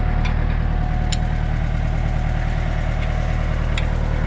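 Kubota tractor's diesel engine idling steadily, with a few light clicks about a second apart.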